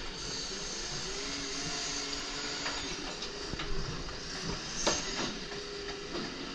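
Mercedes-Benz side-loading refuse truck's automatic arm lifting and tipping a wheelie bin. The hydraulics whine, stepping up and down in pitch as the arm moves, over the idling engine and a hiss. There are a few knocks as the bin is emptied, the loudest near five seconds in.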